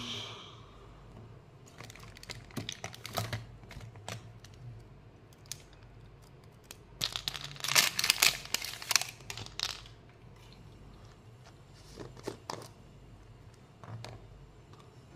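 Candy wrappers crinkled and torn open by hand, in short bursts of crackling, the loudest and longest burst a little past the middle.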